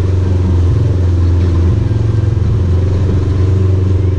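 Engine running steadily at constant speed, a low, even hum with no change in pitch.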